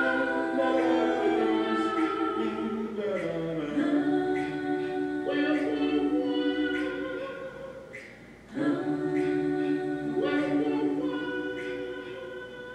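A cappella singing: several voices holding chords in harmony, changing chord every second or two, with a short dip about eight seconds in and fading near the end.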